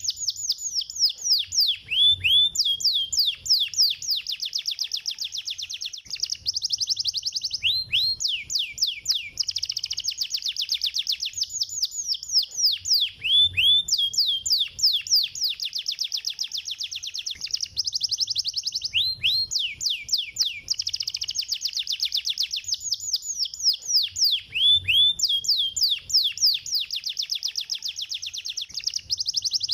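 Domestic canary singing a fast, dense song of rapid high trills. It breaks briefly about every five and a half seconds, and the same phrases repeat as if looped. This is a canary song used as a lure to set other canaries singing.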